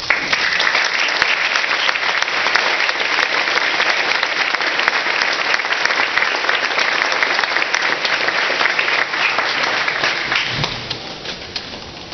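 Audience applauding: dense clapping that thins out and fades over the last couple of seconds.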